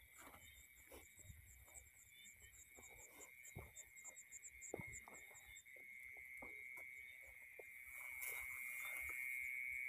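Faint night chorus of insects in a rice field: a steady high buzz that grows louder about eight seconds in, over a fast run of high chirps. Soft footsteps and rice leaves brushing sound as someone walks along the earthen bund.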